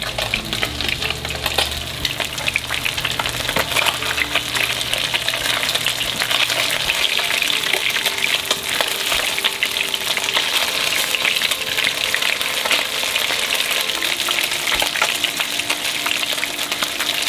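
Panko-breaded cubera snapper fillets shallow-frying in hot oil in a pan: a steady, dense crackling sizzle.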